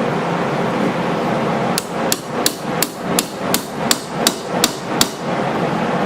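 Hammer tapping a pin into a pocket knife's frame during reassembly: about ten quick, sharp taps at a steady rate of roughly three a second, starting about two seconds in and stopping about a second before the end.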